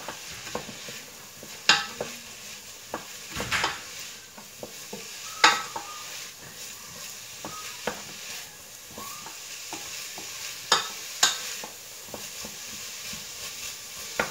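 Chopped onion and garlic sizzling gently in olive oil in a stainless steel pot while being stirred with a wooden spoon. The spoon knocks sharply against the pot about five times.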